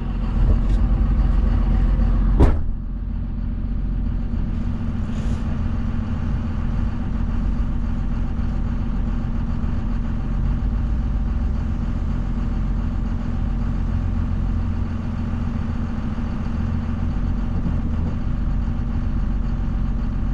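Engine and road noise of a vehicle driving along at steady speed, a continuous low drone. A single sharp click about two and a half seconds in.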